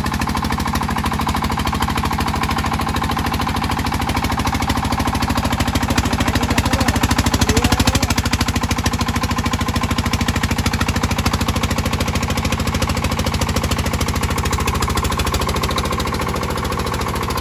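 Single-cylinder horizontal diesel engine of a công nông farm truck running hard under load in mud, a fast steady chugging that swells a little about six to eight seconds in.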